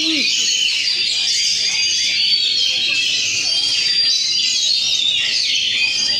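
Several caged oriental magpie-robins singing at once in a contest round: a dense, continuous chorus of overlapping whistles, trills and chirps.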